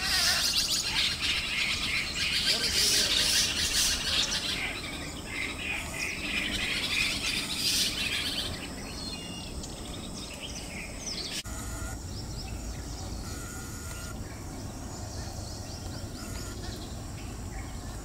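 A flock of jungle babblers chattering with dense, harsh, squeaky calls that die down after about eight seconds, leaving fainter scattered bird calls.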